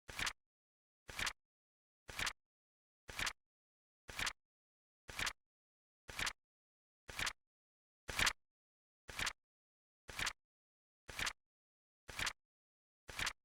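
Flip-clock card flip sound effect: a short click once a second, evenly spaced and steady, with silence between. The one about eight seconds in is a little louder.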